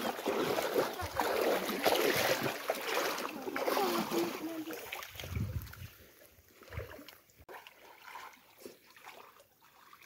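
Shallow water splashing and sloshing as people wade and grope with their hands in it, busy for the first half and dropping to scattered splashes near the end.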